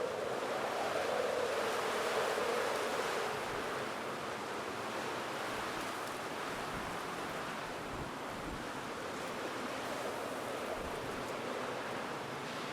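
Wind sound effect: a steady rushing gust with a hollow, howling tone over the first few seconds that fades into a broader hiss. A few faint low thuds come about eight seconds in.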